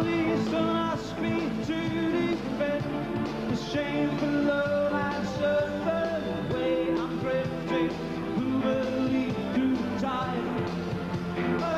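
Live rock band performance: a male lead singer's voice, with long held notes, over keyboards and full band backing.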